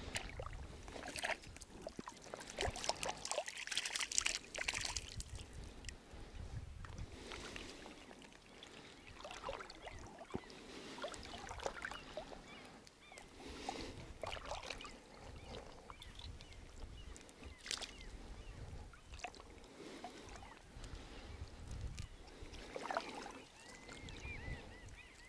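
Lake water splashing, sloshing and dripping as a wet gill net is hauled by hand out of the shallows, in irregular bursts.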